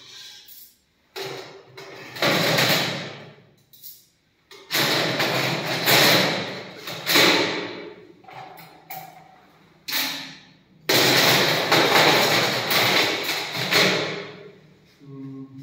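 Stainless-steel sterilization drum and its lid clanking and scraping as they are handled: a string of sudden metallic clatters, each fading over about a second, with short quiet gaps between.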